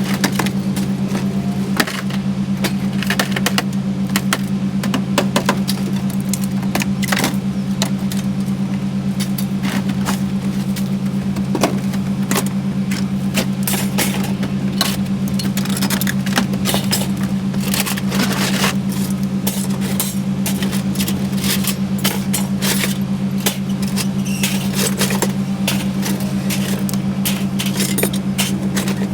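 Aluminum scrap being unloaded by hand, pieces clinking and clattering against each other and the truck bed in frequent short knocks, over a steady low engine drone.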